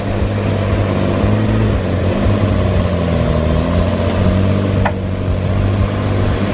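A large engine from heavy logging machinery running steadily, its pitch wavering slightly as the load changes. There is one sharp click about five seconds in.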